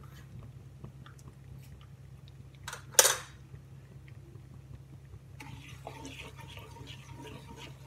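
Cumin seeds frying in hot ghee in a nonstick kadai over a steady low hum, with one sharp knock about three seconds in. From about five seconds a wooden spatula stirs the seeds and the sizzle turns into a busier crackle.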